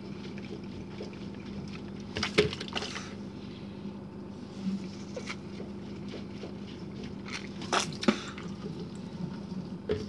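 Dishwasher drain pump running on with a steady hum and a little liquid gurgling, with sharp knocks about two and a half and eight seconds in. The pump keeps going though the sump is empty, which the owner takes for the flood float switch possibly having water under it and being stuck up.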